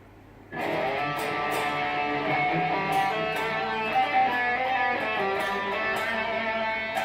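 Electric guitar with a humbucker pickup, played through a Boss GT-100 set to a high-gain extreme lead tone with tape delay and room reverb, then a Harley Benton GPA-400 power amp. Sustained lead notes start about half a second in, after a faint steady amp hum.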